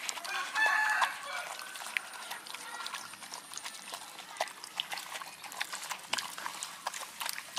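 Dogs eating cooked rice from a metal tray, a run of wet chewing, lapping and clicking sounds as their mouths work the food against the tray. For about a second, starting shortly after the beginning, a short pitched animal call rises above the eating.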